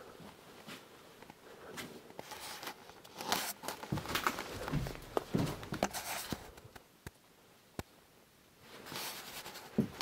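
Rustling and handling noises from someone moving about and handling things, loudest in the middle. Later there are two sharp clicks, then a short quieter spell.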